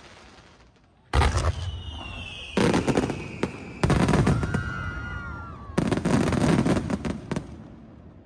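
Aerial fireworks shells bursting in a quick series: a loud first burst about a second in, then about three more, each followed by dense crackling. Between the bursts, whistling tones glide slowly down in pitch.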